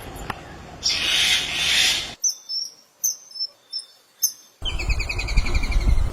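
Several different bird calls, one after another: a rasping hiss for about two seconds, then a few short high chirps with gaps between them, then a fast repeating trill from about four and a half seconds in.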